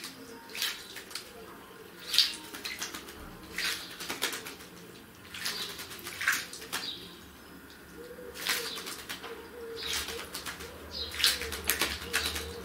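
A common blackbird bathing: short, irregular bursts of splashing and wing-flapping in the water, every second or two.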